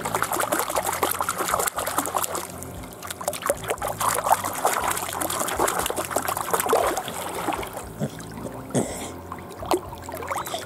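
Pool water splashing and trickling around a dog as it paddles, with a steady run of small splashes and drips close by.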